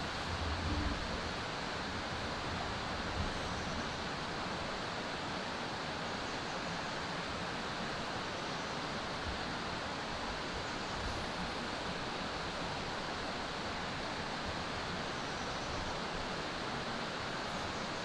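Steady, even rushing background noise in the open air, with no distinct events.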